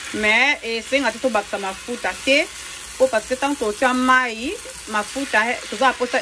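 Chopped sweet potato leaves sizzling in a frying pan as they are stirred with a spatula, with a voice talking over it.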